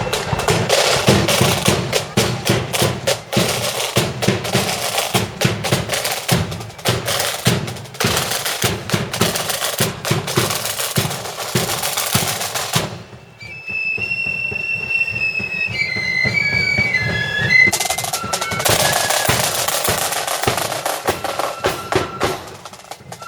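Marching band's snare and bass drums playing a rolling parade beat. About two thirds of the way in the drums drop out for a few seconds while a high melody of short, separate notes plays, then the drumming resumes under it.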